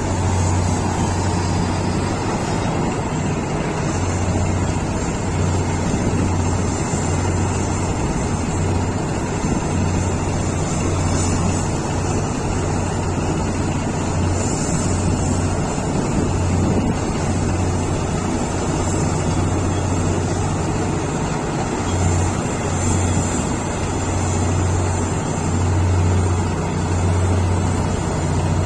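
Heavy diesel engines of a Komatsu PC1800 hydraulic mining excavator and a Caterpillar 777D haul truck running with a steady low drone that swells and eases as the excavator swings and digs.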